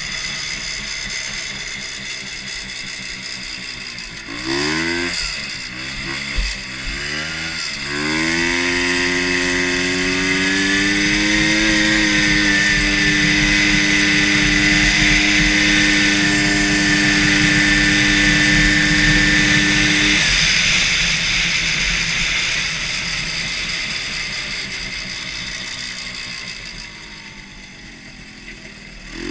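Rotax 250cc two-stroke snowmobile engine on a custom racing lawn mower. It blips twice, then climbs to high revs and holds there steadily for about twelve seconds. It then winds down slowly and revs up again right at the end.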